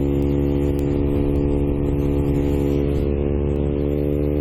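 Motorcycle engine running at steady revs, its note holding one even pitch, over a steady rush of road and wind noise.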